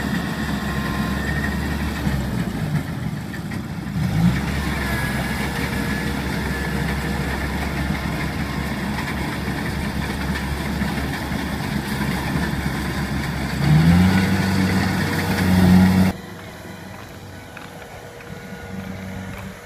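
Kubota DC70 combine harvester's diesel engine running under load, rising in pitch as it revs up a couple of times, most strongly about three-quarters through. Then it drops abruptly to a quieter, more distant engine sound.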